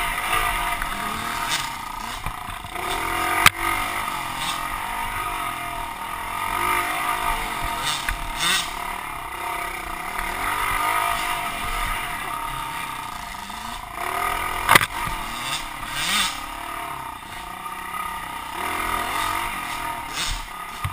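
Small pit bike engine running under the rider, revving up and down as it is ridden along a dirt trail, with the clatter of the bike over rough ground. Two sharp knocks stand out, a few seconds in and again near the middle.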